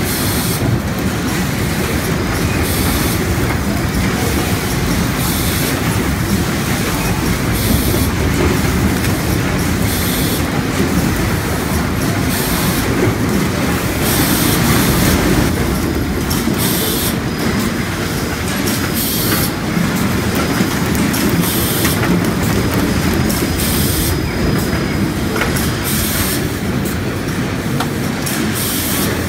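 Onion packing line running: a steady rumble and clatter of red onions tumbling over a roller conveyor and belts, with short bursts of hiss recurring every second or two.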